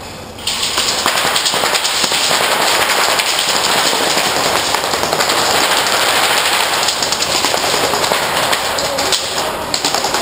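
Many airsoft guns firing at once in a dense, continuous crackling rattle, which picks up after the first half-second.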